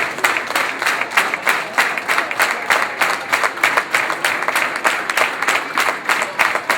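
Audience clapping together in a steady rhythm, about three to four claps a second.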